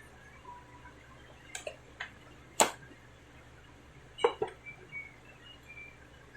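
Handling sounds from the phone and its packaging: a few sharp clicks and taps, the loudest about two and a half seconds in and another just past four seconds.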